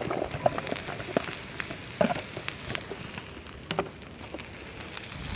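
Chopped peppers, onion and garlic frying in oil in a cast-iron skillet: a steady sizzle with scattered sharp clicks and crackles.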